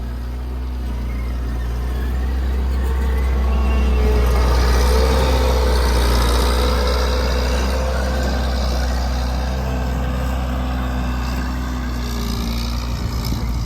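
Case 445CT compact track loader's diesel engine running while the machine works. A steady low drone with a wavering whine above it grows louder over the first few seconds, then holds.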